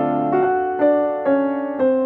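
Background piano music: single notes struck about two a second in a slow melody, each fading before the next.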